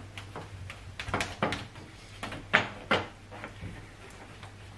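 A cloth buffing a stainless steel gas hob in quick strokes, heard as a string of short swishes and light knocks over a faint low hum.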